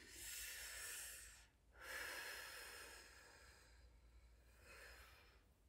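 A woman's slow, soft breaths, two long airy ones: the first lasts about a second and a half, and the second starts about two seconds in and trails off slowly.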